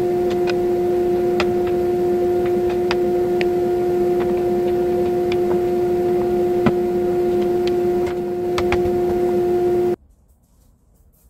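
A workshop machine motor hums steadily, with light clicks and knocks of camphor-laurel wood blocks being slid and bumped together on a metal saw table. The hum cuts off abruptly near the end.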